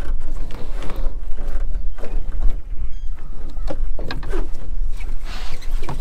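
Knocks and rattles from a netted lobster pot being handled and tipped on a small boat's deck, over a steady low rumble.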